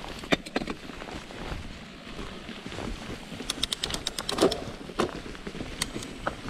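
Mountain bike clicking and rattling over rough ground, with a quick run of sharp ticks about halfway through, under wind noise on the microphone.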